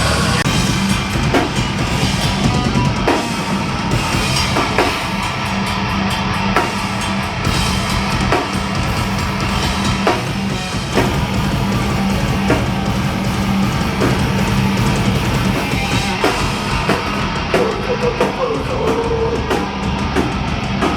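Loud hardcore rock music: a pounding drum kit with bass drum, and guitar.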